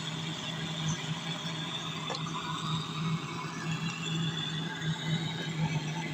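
Steady low mechanical hum of a running machine, with a single sharp click about two seconds in.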